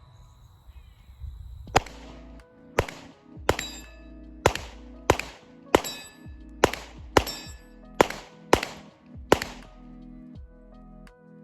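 Glock pistol fired about eleven times in a steady string, a shot every half-second to second, each with a short echoing tail.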